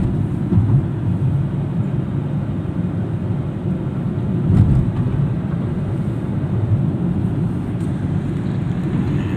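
A vehicle driving along a road: a steady low rumble of engine and road noise.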